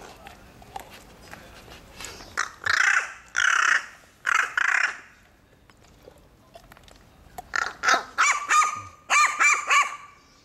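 Crow calling: three or four loud, harsh caws, then a second or two later a quick run of shorter, pitched, bark-like calls, the crow imitating a dog's "wan wan" bark.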